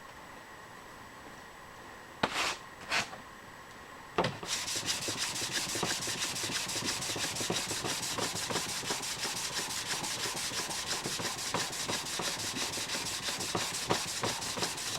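Two brief handling sounds, then about four seconds in, steady rapid back-and-forth strokes of sandpaper on a plastic sanding board rubbing over a brass sheet, hand-sanding out surface scratches.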